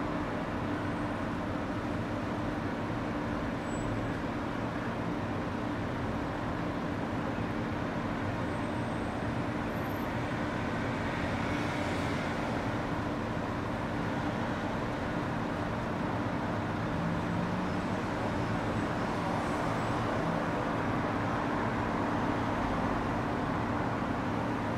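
Steady background hum of distant road traffic, an even, unchanging wash of noise with a low hum.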